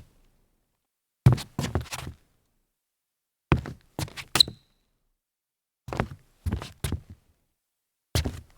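Sneakers stepping and turning around on a hollow wooden floor: four short clusters of three or four footfalls, about two seconds apart, with a brief rubber squeak in the second cluster.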